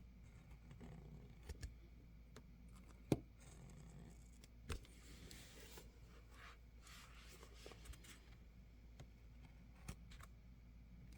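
Faint cutting of a plastic planner cover: a stretch of scraping as the blade draws along the sheet, with a few sharp clicks and taps, the loudest about three seconds in.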